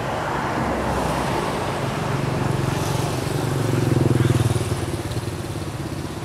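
A motor vehicle's engine running with a steady low hum, growing louder to a peak about four seconds in and then fading as it passes by.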